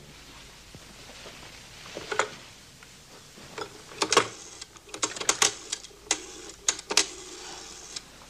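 A string of irregular sharp clicks and clacks, more than a dozen, sparse at first and coming thicker in the second half, like small mechanical strikes.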